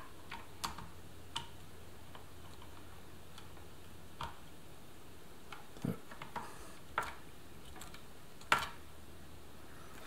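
Scattered faint clicks and ticks, about eight of them, the strongest near the end, from a screwdriver turning a self-tapping screw into the plastic case of an IBM Model F keyboard. The screw is backed off to find the original thread, then driven in gently. A faint low hum runs underneath.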